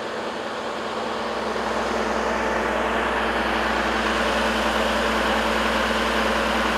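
Heavy diesel engine of a road-works machine running steadily, its sound swelling about a second and a half in.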